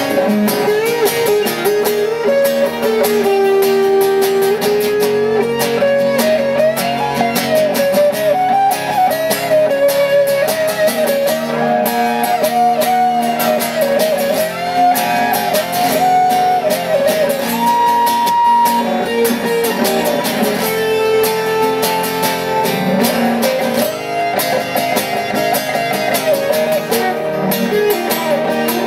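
Two amplified acoustic guitars playing an instrumental passage: a lead guitar picks a wandering solo melody with a held high note about two-thirds of the way through, over steady strummed chords from the second guitar.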